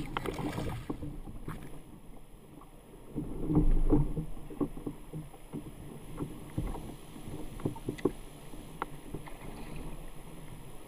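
Water lapping and slapping against a plastic fishing kayak's hull as a hooked salmon tows it, with scattered small knocks and ticks and one louder burst about four seconds in.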